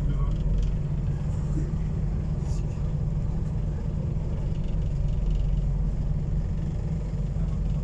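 Scania OmniCity city bus's engine running as the bus moves slowly in traffic: a steady low drone heard from inside the passenger cabin.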